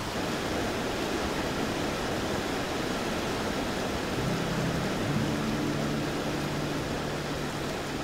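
Fast mountain creek rushing over rocks, a steady even wash of water noise. About four seconds in, soft music with long held low notes comes in over it.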